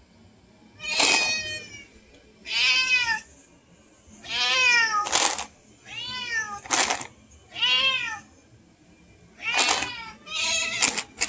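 A domestic cat meowing insistently, about eight loud meows in a row, each rising and then falling in pitch, a second or two apart: a cat yelling for more Greenies treats.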